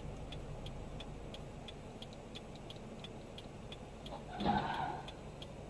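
Steady ticking, about three ticks a second, typical of a car's turn-signal indicator heard inside the cabin. About four and a half seconds in, a brief louder noise lasts about half a second.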